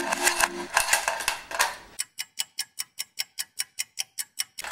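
Background music for about the first two seconds. Then a clock-ticking sound effect plays, with evenly spaced ticks about six a second, and stops just before the end.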